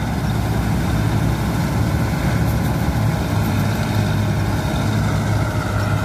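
Combine harvester running steadily while cutting wheat: a constant low engine hum under the even clatter and rush of the cutting and threshing machinery.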